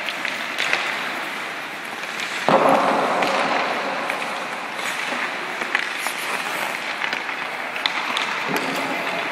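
Ice hockey skates scraping and carving on rink ice, with a sudden louder scrape about two and a half seconds in and a few sharp clacks of stick and puck later on.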